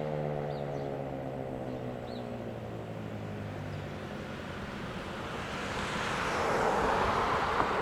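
ACA PN-20 / ASC RM-130 electromechanical civil defense siren winding down after shutting off, its tone gliding steadily lower and fading out within about four seconds. Near the end a broad whooshing rush swells and fades, like something passing by.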